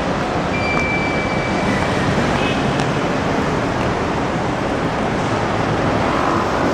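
Steady city road traffic noise, a continuous even hum of passing vehicles. A brief thin high tone sounds about half a second in.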